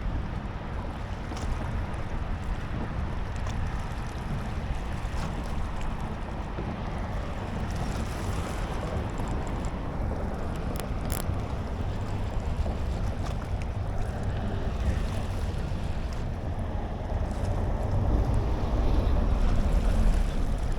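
Wind buffeting the microphone over moving bay water, a steady rumbling hiss that gets stronger near the end.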